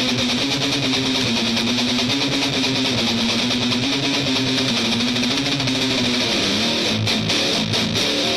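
Electric guitar, a white Telecaster-style solid-body, picked in a steady riff of held notes that shift in pitch, turning to short choppy strokes about seven seconds in.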